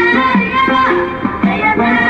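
Folk-style music: a melody line with gliding notes over a repeating lower accompaniment.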